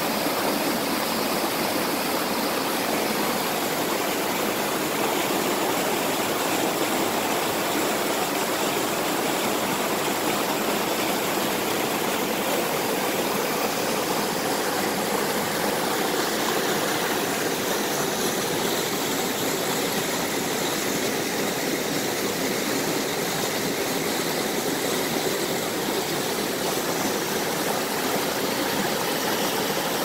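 Whitewater of a rocky stream cascading over boulders: a steady, even rush of falling water.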